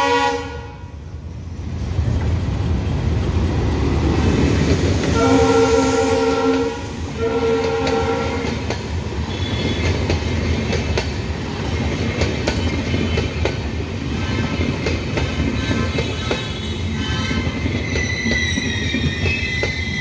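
WDM3A ALCO diesel locomotive passing at speed, sounding its horn: a blast that cuts off just after the start, then two more blasts about five and seven seconds in, over the loud rumble of the locomotive and train. The passenger coaches then rush past with a steady clatter over the rails and a wavering high squeal near the end.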